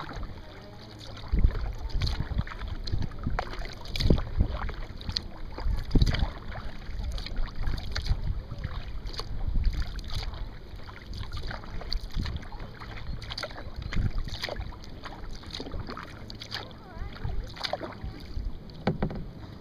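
Kayak paddling: the paddle blades dipping and splashing in the lake water in a steady, even rhythm. Wind buffets the microphone throughout.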